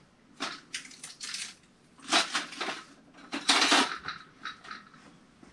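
Small loose metal screws clinking and rattling as they are handled, in several short bursts, the loudest about three and a half seconds in.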